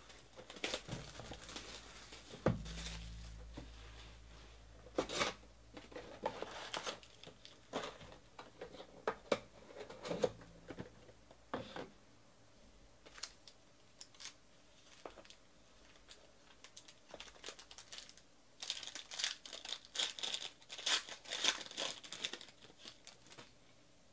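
Plastic wrapping and foil packs of a 2019 Panini Certified football box being torn open and crinkled, with scattered taps and clicks as the box, packs and cards are handled. The densest crinkling comes about three-quarters of the way through.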